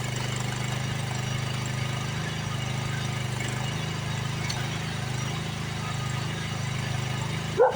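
Mini excavator engine running steadily, with one short dog bark near the end.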